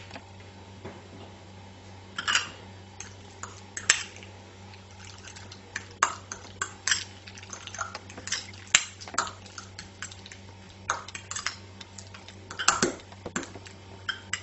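Metal spoon clinking and scraping against a small glass bowl while stirring tuna, mayonnaise and diced mixed vegetables, in quick irregular taps.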